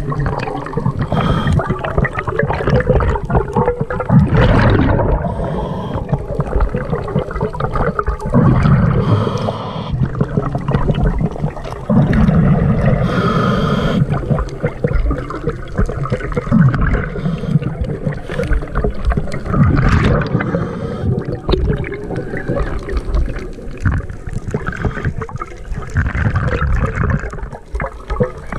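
Scuba diver breathing through a regulator underwater: bursts of exhaled bubbles gurgling about every four seconds, with a hiss of inhalation between them.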